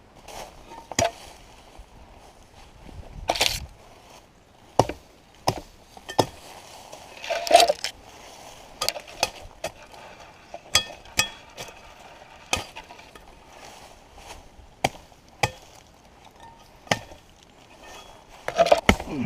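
Axe head of a Super P40 fire tool chopping into wood: about twenty sharp blows, roughly one a second and irregularly spaced. A few heavier strikes, about three seconds in, halfway and near the end, end in a longer crunch.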